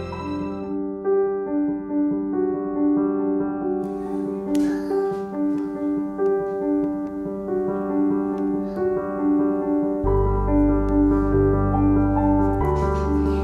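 Background music: gentle piano-led music playing a repeating pattern of notes, with deep bass notes joining about ten seconds in.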